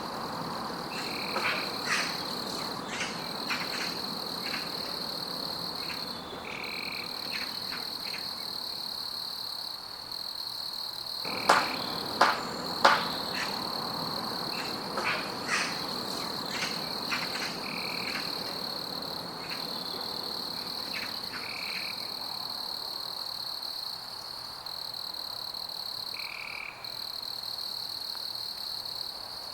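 Jungle frogs croaking in sharp, irregular calls over a steady high-pitched insect drone, which drops out briefly now and then. The loudest croaks come in a quick cluster a little before halfway.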